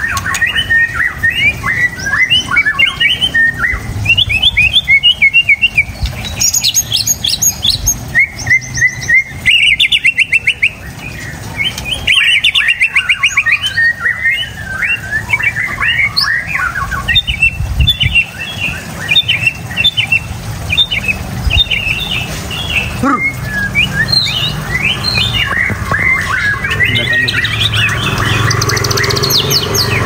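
White-rumped shama (murai batu) singing a long, varied song of quick whistled phrases and fast rattling trills, one run after another with hardly a break.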